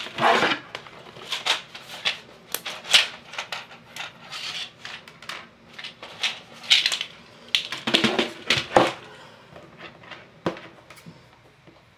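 Thin floral wire being handled: a run of light metallic clicks, rattles and rustles as a length is drawn out and laid on the table, tapering off near the end.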